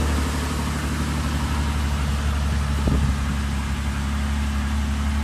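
1988 BMW E28 M5's 3.5-litre straight-six idling steadily soon after a boosted cold start, running really rich. A single short click sounds about three seconds in.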